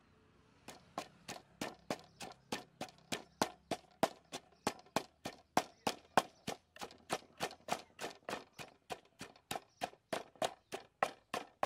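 Wooden pestle pounding red chilies and garlic in a wooden mortar: a steady run of thuds, about three a second, starting just under a second in.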